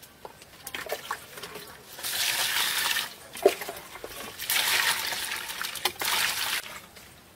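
Flower petals being washed by hand in a basin of water: water splashing and swishing in three bouts, about two, four and a half, and six seconds in, with a few small knocks between.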